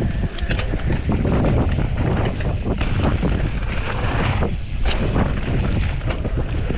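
Wind buffeting the microphone while riding a Specialized Turbo Levo e-mountain bike on a rough dirt trail, with tyres rumbling and the bike clattering in many short knocks over the bumps.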